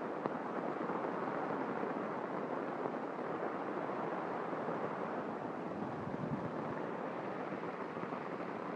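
Heavy rain pouring down in a steady, dense downpour.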